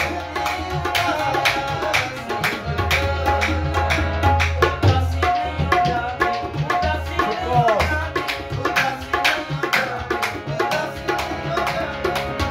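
Qawwali played live: tabla and dholak drumming a dense, steady rhythm under a harmonium's held notes, with a man singing.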